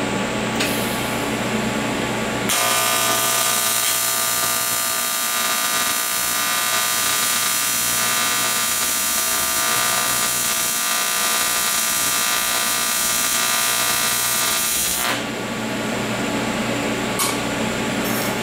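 AC TIG welding arc on aluminum buzzing steadily, starting a couple of seconds in and cutting off about three seconds before the end as a bead is laid with 5356 filler rod. A steady hum runs under it before and after the arc.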